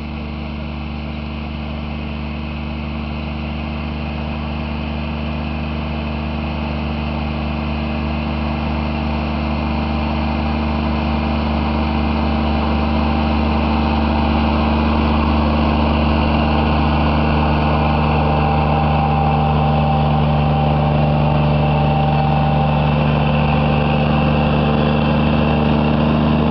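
Riding reel mower's engine running steadily as it cuts grass, growing gradually louder as the machine drives closer.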